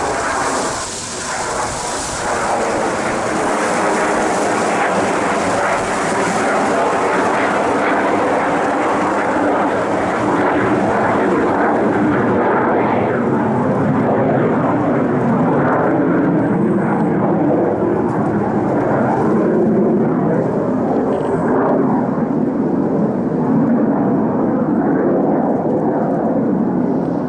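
Airplane engines running loudly and steadily as an aircraft passes close by. The high hiss fades after about twelve seconds, while a lower rumble carries on.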